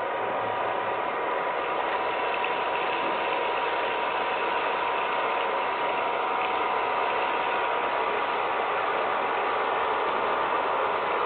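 Small electric motor of a homemade vacuum cleaner running steadily, a constant whirring buzz with a steady whine.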